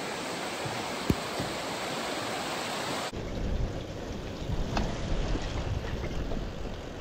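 River water rushing, a steady hiss. About three seconds in it changes abruptly to a lower, uneven rumble, with wind buffeting the microphone.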